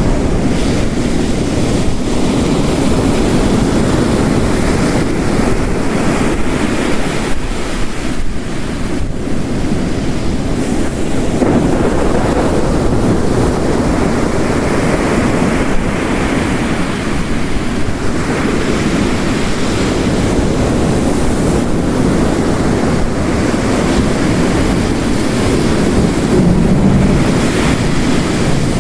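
Ocean waves crashing on a rocky coast, the surf swelling and easing, over a steady hiss of heavy rain.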